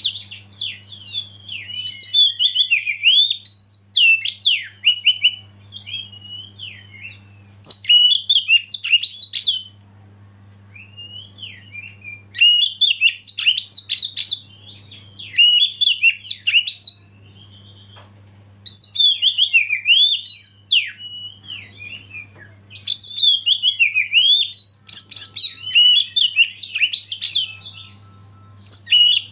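Oriental magpie-robin (kacer) singing in bursts of rapid, varied whistled phrases, each a few seconds long with short pauses between them. A faint steady low hum runs underneath.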